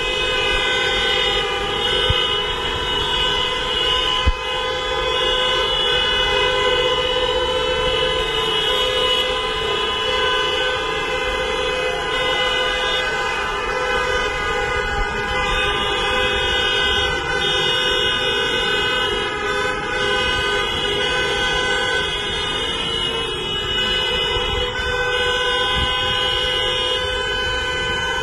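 Many car horns honking together in long, overlapping blasts without a break: drivers honking in protest.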